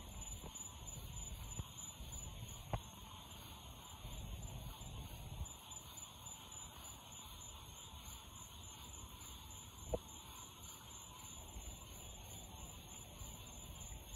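Faint outdoor night ambience: a low rumble and a steady high-pitched hum, broken by two sharp clicks, about three seconds and ten seconds in. No rocket sound is heard yet.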